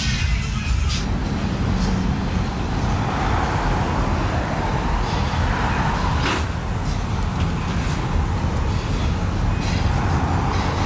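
Street traffic with cars rolling slowly past, a steady low engine rumble and tyre noise that swells as vehicles pass close by. A single sharp click about six seconds in.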